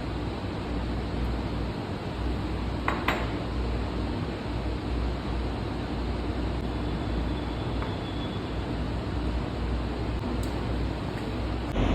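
Hydrogen gas from zinc and dilute hydrochloric acid igniting at a flame with a small, quiet pop about three seconds in. A few fainter clicks follow over a steady room hum.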